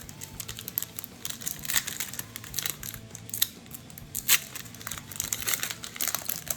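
Plastic trading-card pack wrapper crinkling and rustling as it is handled: irregular crackles throughout, several sharper ones about two, three and a half and four and a half seconds in.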